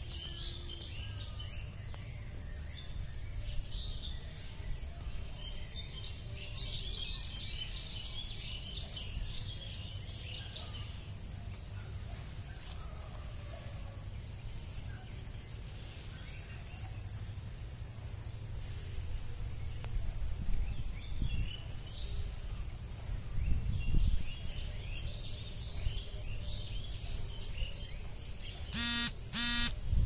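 Outdoor nature ambience: birds chirping, mostly in the first half, over a steady high insect drone and a low rumble that turns gusty about twenty seconds in. Just before the end come two loud short pitched calls.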